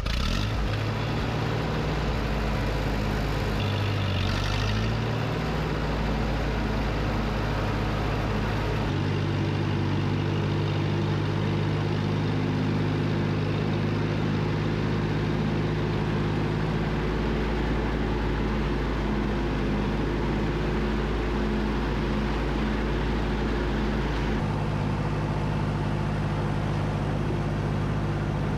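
1959 Allis-Chalmers D17 tractor's four-cylinder engine running steadily while driving. The engine note changes about nine seconds in and again a few seconds before the end.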